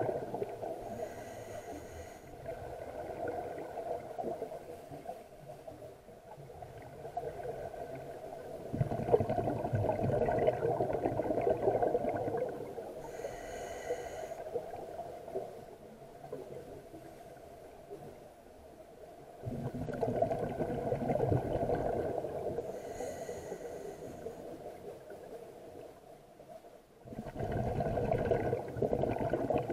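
Scuba diver breathing through a regulator underwater: slow breath cycles, each a short hiss of inhaling through the demand valve and a long bubbling rush of exhaled air, three exhalations in all.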